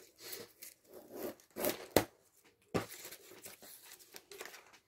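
Cardboard box and paper packaging being handled: rustling, crinkling and scraping, with a sharp tap about two seconds in and another just before three seconds.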